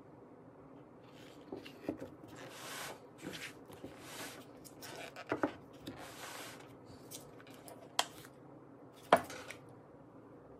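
Gloved fingers rubbing coloured cocoa butter around the inside of a clear plastic chocolate mold's cavities: a run of short swishing rubs, then two sharp knocks near the end.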